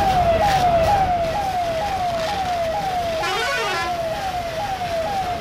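Emergency vehicle siren sounding a repeating falling sweep, each cycle jumping up and sliding down, about two a second. About three seconds in, a second, higher tone swoops up and down briefly over it.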